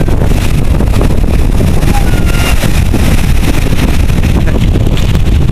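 Wind buffeting the microphone over the rush of waves breaking in shallow surf, a loud, steady rumble.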